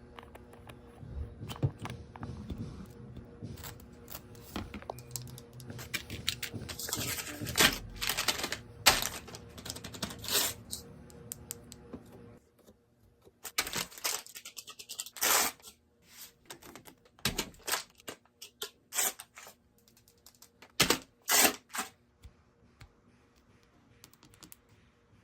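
Hands handling and unwrapping small product packaging: an irregular run of clicks, taps and crinkling rustles of cardboard and plastic.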